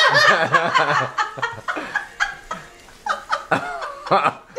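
A small group of people snickering and laughing in short bursts, easing off briefly in the middle and picking up again near the end.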